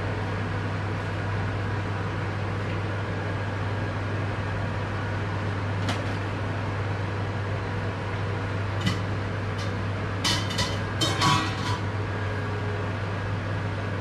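Steady low machine hum, with a few light clicks about six and nine seconds in and a quick run of clicks and knocks around ten to twelve seconds in.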